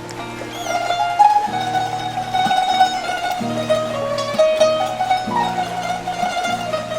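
Instrumental background music: a melody of changing notes over held low notes that shift every second or so.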